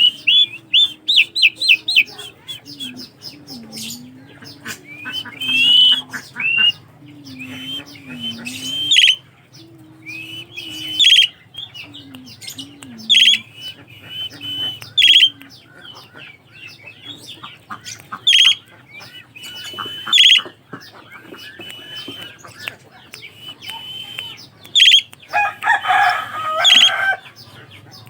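Asian pied starlings calling: repeated clear whistles mixed with sharp, harsh squawks, and a dense burst of chattering a few seconds before the end. A low wavering tone runs under the calls through the first half.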